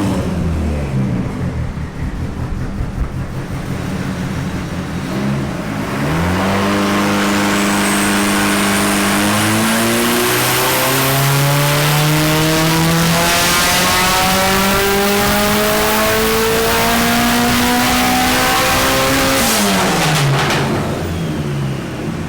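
Nissan S14 Silvia's turbocharged engine making a full-load power run on a dyno: after running low for a few seconds, it climbs steadily up through the revs for about thirteen seconds, with a faint high whine rising alongside, then drops away sharply as the throttle closes, with a few sharp cracks.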